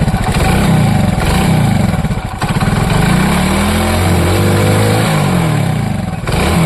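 Hero Splendor's single-cylinder four-stroke engine revved up and down several times with the throttle. With its timing chain freshly set, it runs smooth, with none of the khat-pit chain clatter.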